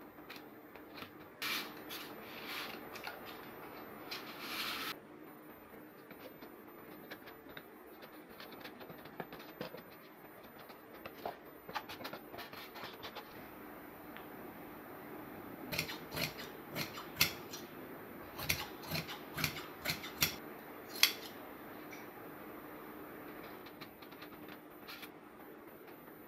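Fibreglass mat being handled and cut with scissors: a few seconds of rustling near the start, then a quick run of sharp snips about two-thirds of the way through, over a faint steady hum.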